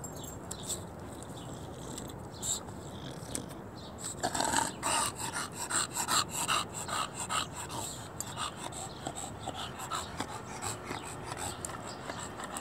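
English bulldog panting heavily close by, a rapid rasping rhythm of about three breaths a second, loudest from about four to eight seconds in.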